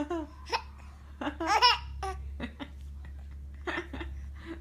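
A small child laughing in short bursts, loudest about a second and a half in.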